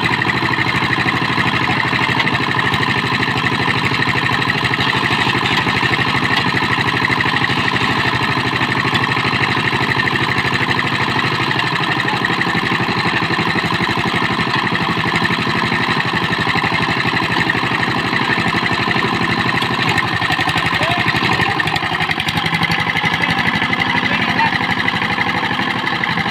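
Single-cylinder diesel engine of a two-wheel power tiller running steadily with a fast, even beat while its rotary tines churn the soil.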